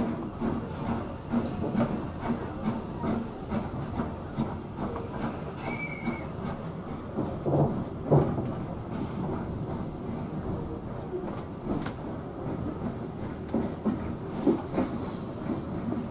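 Steam-hauled heritage train on the move, with rumble and clatter from the wheels and carriage and a hiss of steam.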